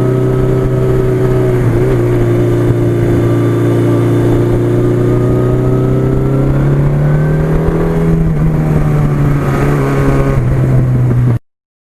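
1982 Suzuki GS1100E's air-cooled inline-four engine running under way at a steady speed. The pitch holds nearly even, rises slightly and then dips about eight seconds in, and the sound stops abruptly near the end.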